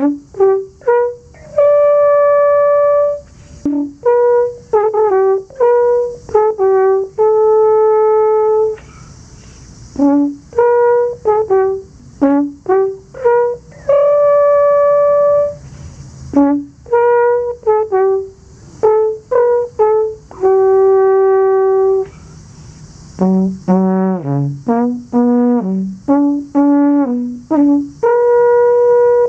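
Alphorn played in phrases of short, quick notes, each phrase ending on a long held note, with brief pauses between phrases. About two-thirds of the way through comes a faster run of short notes dipping lower.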